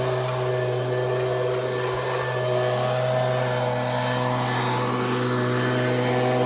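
Steady mechanical hum, a low drone with several steady higher tones over it, unchanging throughout.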